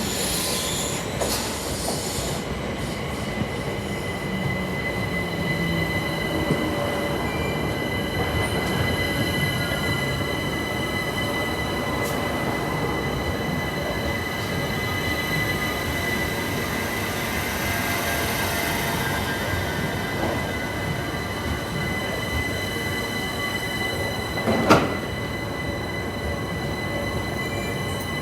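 London Overground Class 378 electric train running on the rails, with a steady rumble of wheels on track and several thin, high wheel-squeal tones held over it. A single sharp click sounds near the end.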